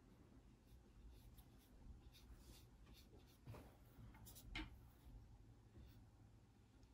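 Near silence broken by a few faint, short swishes of a small paintbrush stroking wet watercolor across thick paper, the clearest about three and a half and four and a half seconds in.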